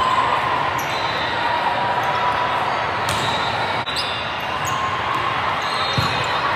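Volleyball being struck during a rally: a few sharp hits of the ball, about a second in, around three seconds in and near the end, over the steady din of a large, echoing hall with voices.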